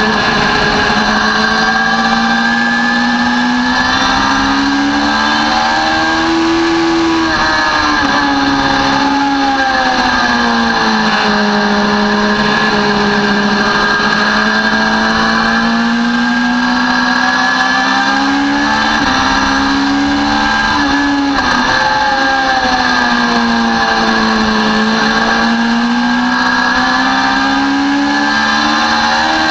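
Sport motorcycle engine at track speed, its pitch rising under acceleration and falling as the bike slows for corners, several times over, with brief breaks at gear changes.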